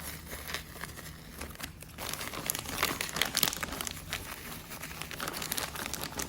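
Plastic diaper-pack wrapping crinkling and rustling as a tape diaper is pulled out of the opened pack. The crinkling gets busier and louder about two seconds in.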